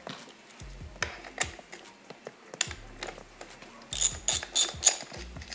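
Metal tools and parts clicking and tapping as an electric skateboard's gear drive and wheel are taken apart. Scattered clicks run through, with a quick run of sharper clicks about four seconds in.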